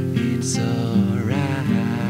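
A band's song playing with no vocals at this point: strummed guitars over bass. About a second and a half in, a held note bends up and wavers.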